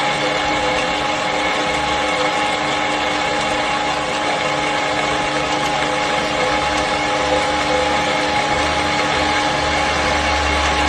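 Granulator machine running steadily: a continuous motor noise with several constant whining tones. A low rumble grows a little stronger near the end.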